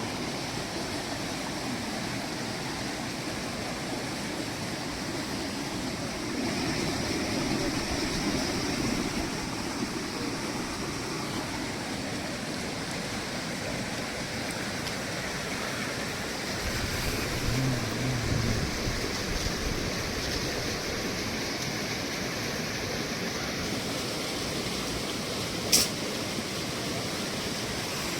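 Steady rushing noise of flowing water, like a nearby mountain stream. A short low rumble comes a little past the middle, and one sharp click sounds near the end.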